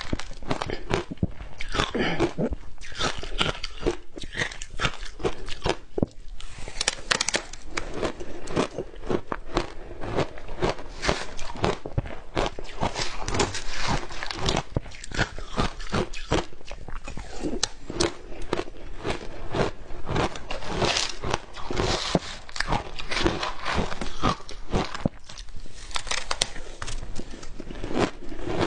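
Matcha-dusted frozen ice crunching as it is scraped up with a metal spoon from a plastic tub and bitten and chewed; a dense run of sharp crackles and crunches.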